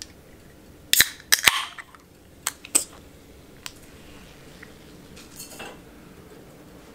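An aluminium can of Monster Energy being cracked open: a sharp pop of the tab about a second in, followed by a brief fizz, then a couple of sharp clicks as the can is handled.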